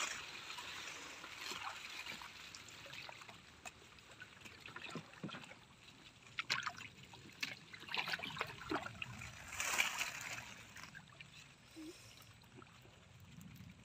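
Water splashing and trickling irregularly as hands work through shallow water feeling for fish, with a few louder splashes in the second half.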